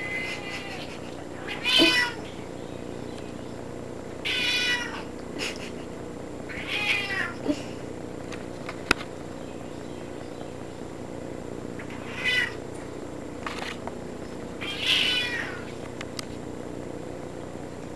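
A cat meowing about five times, each meow a separate call a few seconds apart, the first the loudest. A single sharp click sounds in the long gap between the third and fourth meows.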